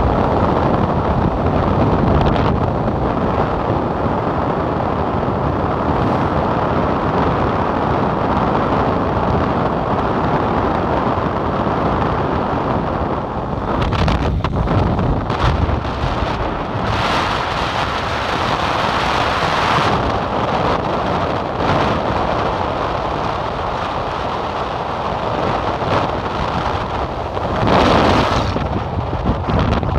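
Wind buffeting a phone's microphone on a moving motorbike, over the steady rumble of the bike and the road. A louder swell a little before the end comes as a goods truck is passed close by.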